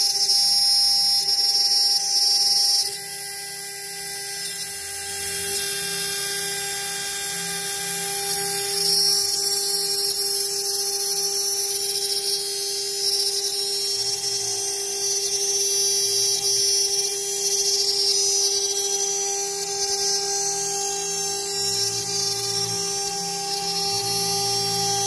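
High-speed CNC spindle running with a steady whine while a small end mill cuts a carbon fiber plate under a stream of water coolant, with water hissing and splashing over it. The sound steps down in loudness about three seconds in.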